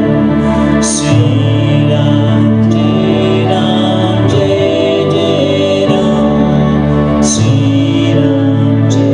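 Live music: a woman sings a slow melody over acoustic guitar, with long held low notes underneath.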